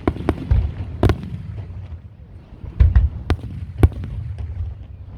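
Aerial fireworks shells bursting in a rapid string of sharp reports, about seven in five seconds, over a continuous low rumble; the loudest bangs come about three and four seconds in.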